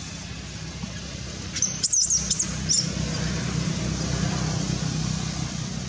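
Baby macaque squealing: a short run of very high-pitched, quickly wavering squeaks about two seconds in, over a steady low background noise.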